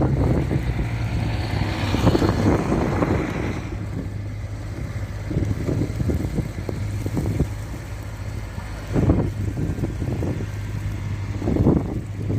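City street traffic: a car passes about two seconds in, its noise swelling and fading over a steady low hum, with scattered short knocks later.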